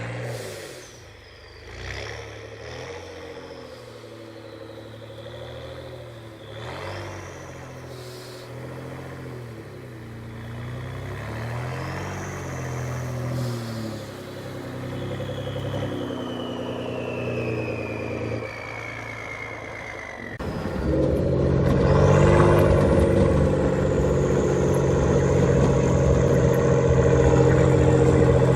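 Ford F-150 3.5L EcoBoost twin-turbo V6 revving, with a turbo whistle from an SPD Performance whistle kit that rises with each rev and falls slowly as the turbos spool down. About two-thirds of the way in, the engine jumps to a loud, sustained pull with a high whistle rising and then holding over the exhaust.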